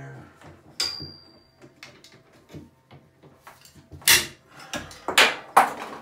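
Steel tape measure being handled: a sharp click with a thin ringing tone about a second in, then three loud, short rasping noises near the end as the tape blade is run out and let back into its case.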